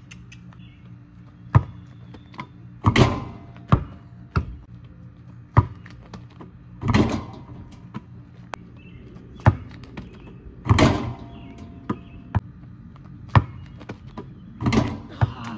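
A basketball thudding on a driveway and dunks on an outdoor hoop: a string of sharp ball bounces and landings, and four longer, louder rattles of the rim and backboard, evenly spaced. A steady low hum runs underneath.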